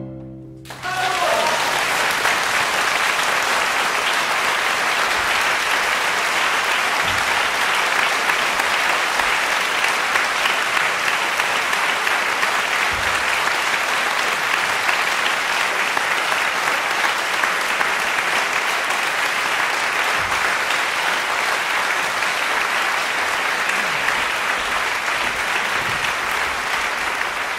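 Large audience applauding steadily, breaking out about a second in as the last ring of a string quartet's final chord dies away.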